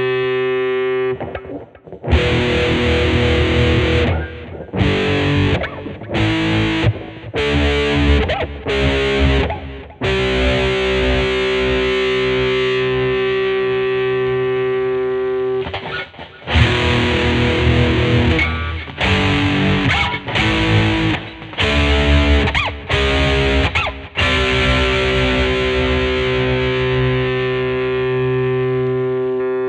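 Electric guitar from a 'Jazzblaster' conversion, played through a Peavey Vypyr VIP 2 modelling amp with a distorted tone. Chords are struck and left to ring, with two runs of short, choppy stabbed chords between them, and the last chord slowly dies away.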